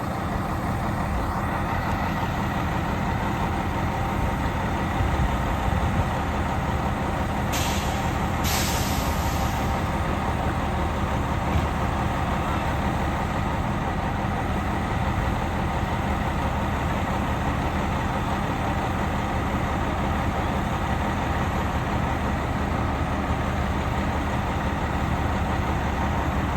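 Heavy truck engine idling steadily, with two short hisses of air from the air brakes about a third of the way through.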